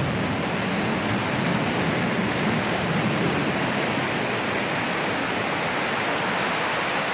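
Blue Origin New Shepard booster's BE-3 liquid-hydrogen/liquid-oxygen engine firing to slow the final landing descent: a steady, even rushing noise.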